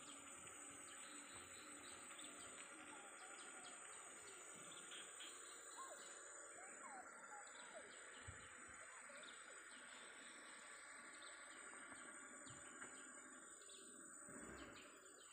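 Faint rural ambience with scattered bird chirps; a few short rising and falling bird calls come about six to seven seconds in, over a steady faint high hiss.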